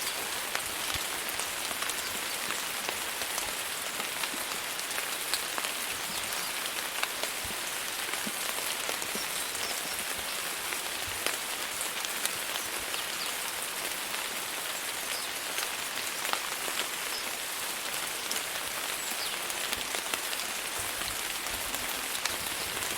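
Steady rain falling on a surface, an even hiss with many scattered individual drop ticks.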